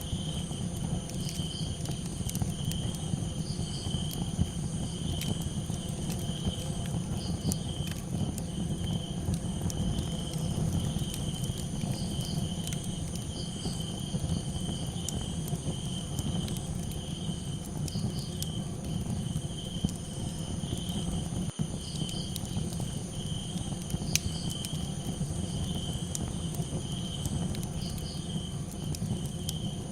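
Crickets chirping in a steady, pulsing trill with a campfire crackling: scattered sharp pops and snaps over a low, steady rush.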